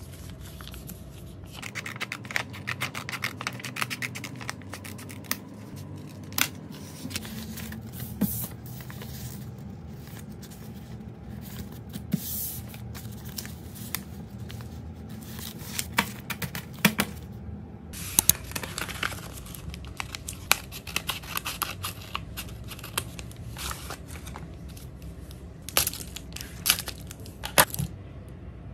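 Sheets of thin patterned paper rustling, creasing and crinkling in the hands as they are folded into small packets, with frequent crisp clicks of paper handling and a denser stretch of crinkling about two-thirds of the way through.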